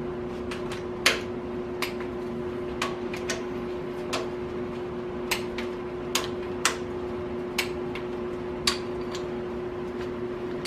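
Torque wrench and socket working round the intake-manifold bolts, re-checking each at 30 ft-lb: about a dozen sharp metal clicks and clinks at irregular intervals, over a steady hum.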